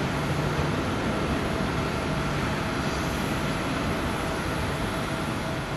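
Boeing 767-381's twin jet engines at take-off thrust as the airliner climbs away: a steady rushing noise with a faint high whine, beginning to fade near the end.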